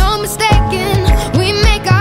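Background pop music with a steady beat, about two beats a second, and a wavering melody line.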